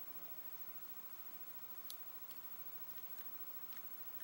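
A few faint, light clicks of small metal parts being handled while a lock's pins and springs are taken out of the cylinder, the clearest about halfway through.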